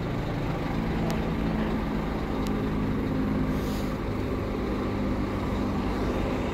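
Bus engine idling steadily, a low even drone with a few faint clicks over it.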